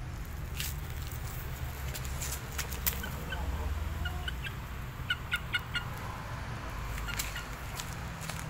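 Chickens clucking: a few short, high calls about three seconds in and a quick run of four or five near the middle, over a steady low rumble. A sharp click a little before the first calls is the loudest sound.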